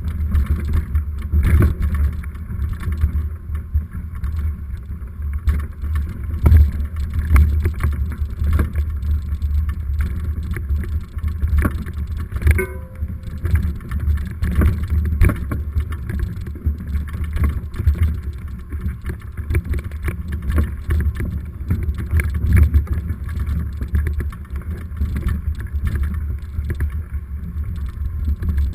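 Mountain bike descending a rough trail, picked up by a GoPro camera riding along: a continuous low rumble and buffeting with frequent knocks and rattles from the bumps. A short high squeak about twelve seconds in.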